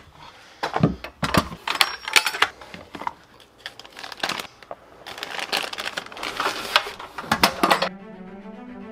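Irregular clinks and rattles of small metal parts being handled, with a plastic bag crinkling as it is rummaged through. Near the end, music with low bowed strings comes in.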